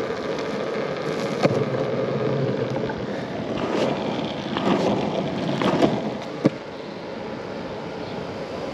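Wheeled plastic garbage bin rolled over pavement: a steady rough rumble with a few sharp knocks, louder and rougher in the middle and a little quieter near the end.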